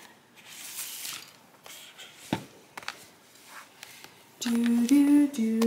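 A tablet-sized device is slid into a felt sleeve: soft rustling and scraping with a few light clicks. From about four and a half seconds in, a woman hums a short tune in steady held notes that step up and down.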